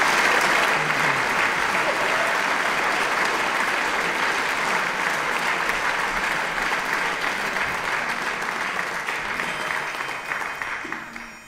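Audience applause, a steady dense clapping that fades away near the end.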